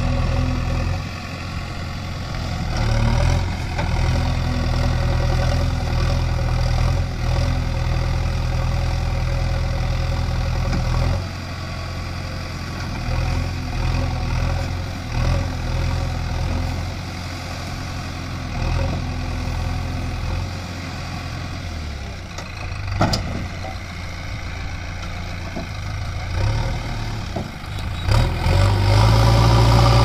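JCB 3DX backhoe loader's diesel engine running under changing hydraulic load as the backhoe bucket works in the river, its note rising and falling. A single sharp knock comes about three-quarters of the way through, and the engine is louder near the end.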